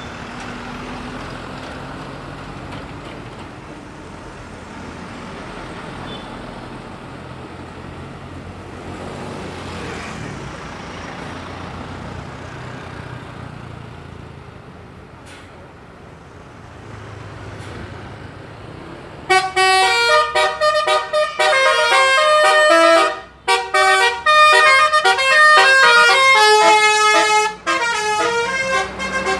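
Road traffic and bus engines running, then about two-thirds of the way in a bus's 'telolet' multi-tone air horn plays a loud, quick tune of changing notes for about ten seconds, with one short break in the middle.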